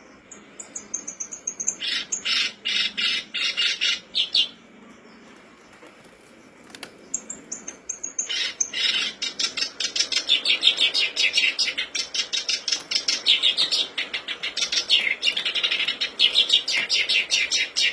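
Black-browed reed warbler (kerak basi alis hitam) singing in two bursts, the second much longer. Each burst opens with a short falling whistle and runs into fast, harsh, repeated chattering notes.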